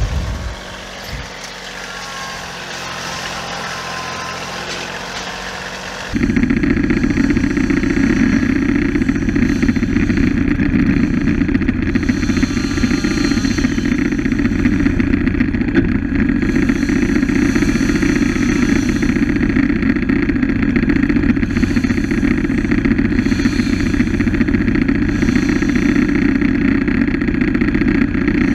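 Wood-Mizer LT15 Go sawmill running: a quieter engine idles at first, then about six seconds in a loud, steady engine sound starts abruptly and holds, with a hissing swell every few seconds as the blade works.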